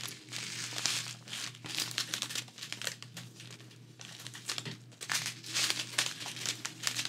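Thin plastic bags of resin diamond-painting drills crinkling as the joined strand is handled, an irregular crackle that eases off for a moment about halfway through.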